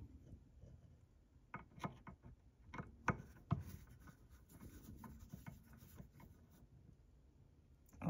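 Faint scraping and a few small clicks of a soldering iron tip working solder joints on a small circuit board, while an infrared receiver part is being desoldered. The clicks fall between about one and a half and three and a half seconds in, followed by softer rubbing.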